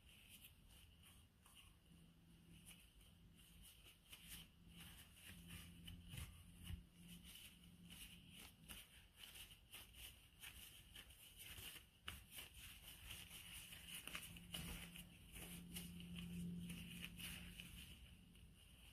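Near silence with faint crinkling of a plastic food-handling glove and scattered light ticks as cookie dough is scooped from a glass bowl by hand.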